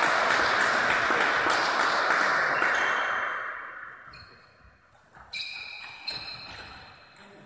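Applause ringing through a large hall as a table-tennis point ends, dying away after about three and a half seconds, with a few fainter short squeaks and voices after it.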